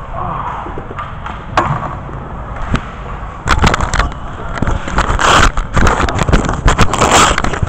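Handling noise from a camera with its lens covered: rubbing and scraping against the microphone with scattered knocks, turning louder and busier about three and a half seconds in.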